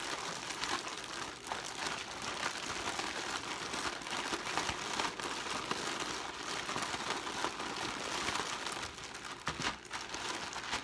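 Zip-top plastic bag crinkling and rustling as chunks of onion, jalapeño and mini bell pepper in olive oil are shaken around inside it to coat them; a continuous rustle that eases briefly near the end.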